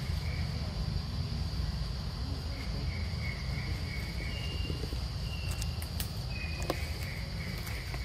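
Steady high-pitched insect chorus of forest crickets or cicadas, over a low rumble, with a few short high chirps and a couple of faint clicks.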